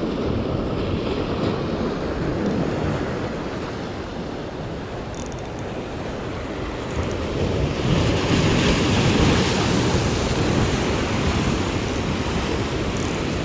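Sea surf washing in and breaking against the boulders of a rock breakwater, with a louder wave crashing about eight seconds in.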